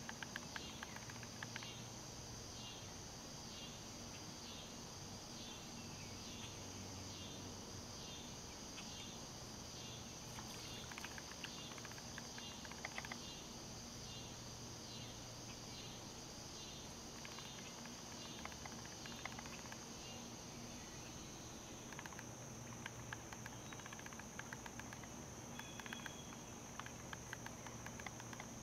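Steady high-pitched insect chorus, with a fainter chirp repeating about once a second for most of the time and a few scattered faint clicks.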